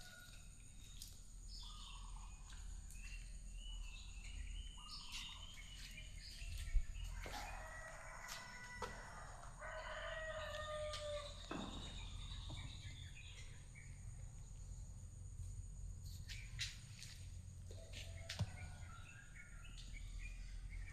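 Birds calling: two long drawn calls, about eight and ten seconds in, among scattered short chirps, over a low steady hum.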